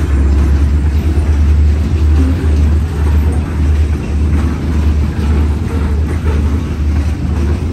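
Freight train of open-top hopper cars rolling past, its steel wheels on the rails making a loud, steady, deep rumble that swells about twice a second.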